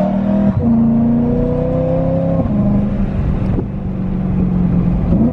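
BMW E92 M3's 4.0-litre V8 running through an aftermarket Valvetronic valved exhaust, heard from inside the cabin while driving. The engine note steps abruptly in pitch about half a second in and again about two and a half seconds in, as the gears change.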